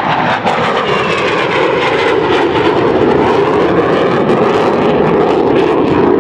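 Lockheed F-104 Starfighter's J79 turbojet in a loud flyby: continuous jet noise whose pitch shifts slowly as the aircraft passes and draws away.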